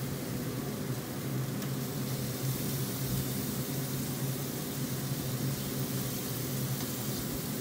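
Pellet grill's blower fan running with a steady hum over an even hiss.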